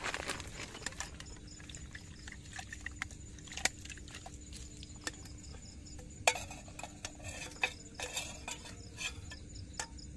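Aluminium camping cookware being handled by a portable gas stove: scattered light clinks and knocks of pot and lid, a few sharper ones in the middle, with a brief plastic rustle at the start.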